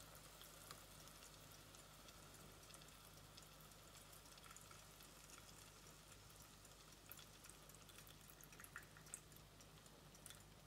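Near silence: melted clarified butter trickling quietly from a pot through a small strainer into a jar, with faint scattered drips and ticks over a low steady hum.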